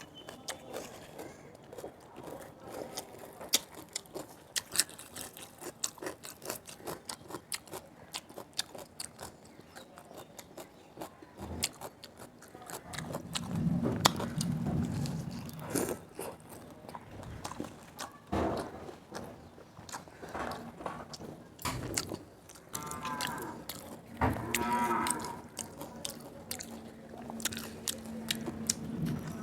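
Close-miked eating: chewing, mouth clicks and crisp bites of raw salad vegetables. A few longer low hum-like sounds come around the middle and again near the end.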